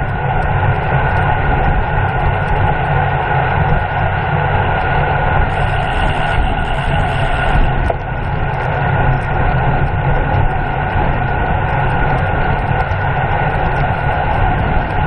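Steady rush of wind buffeting the microphone of a racing cyclist's onboard camera at speed, a heavy rumble with a steady hum over it, briefly brighter about six seconds in.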